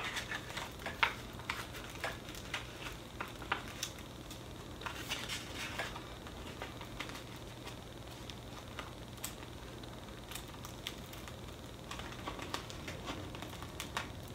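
Backing paper being peeled off adhesive stencil vinyl: soft crackling and rustling with scattered small clicks, busiest about five seconds in and again near the end.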